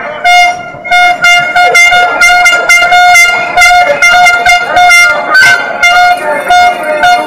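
A horn sounded in rapid short toots, several a second, all on one high note.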